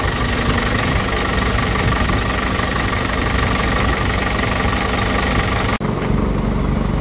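Scania R450's 13-litre inline-six diesel engine idling steadily, heard close up in the open engine bay. A little before the end the sound changes abruptly: the higher tones drop away and a duller low running carries on.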